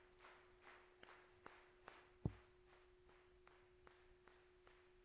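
Near silence: a faint steady hum under soft regular swishes and a few light clicks, with one dull thump a little past two seconds in.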